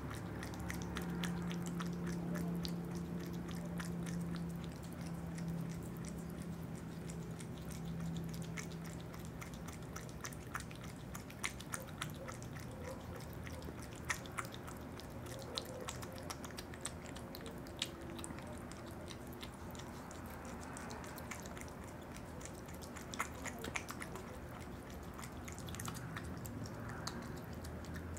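An opossum eating yogurt: close-up chewing with many irregular sharp clicks. A steady low hum underlies the first part and fades out after about ten seconds.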